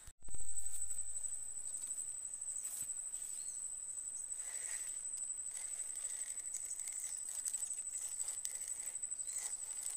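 An insect trilling without a break at a very high pitch, with a fainter, lower chirping coming and going from about halfway through.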